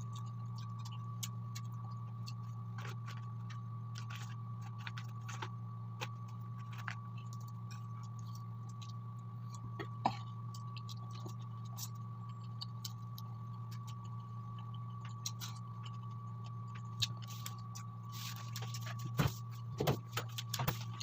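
Close-up eating sounds of fried chicken wings eaten by hand: scattered small clicks of chewing and mouth sounds, busier and louder near the end, over a steady low hum.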